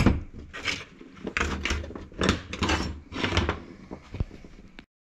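Metal parts and hand tools clinking and scraping against a gearbox casing as its cover and retaining nut are fitted: a run of irregular knocks about every half second.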